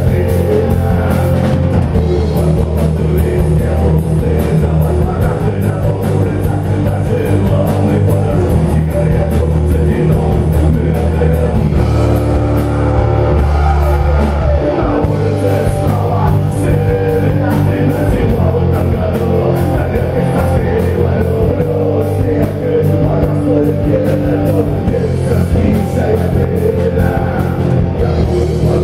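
Rock band playing live, loud and steady: distorted electric guitars, bass and a drum kit keeping a regular beat, with some singing.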